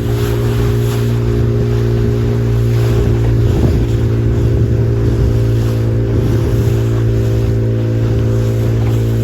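Motorboat engine running steadily at speed with an even, unchanging tone, and a constant rush of water and wind noise over it.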